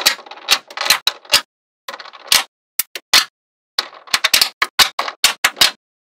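Small metal magnetic balls clicking and snapping together as strips of them are laid onto a slab of magnet balls: clusters of sharp clicks with short rattles between them, fastest in a quick run about four seconds in.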